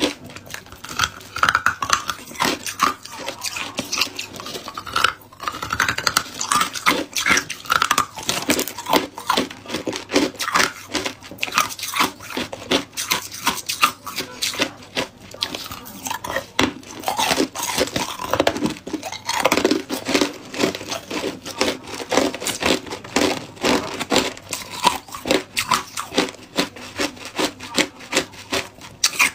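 Hard ice being bitten and chewed: a continuous rapid series of sharp crunches and cracks, several a second.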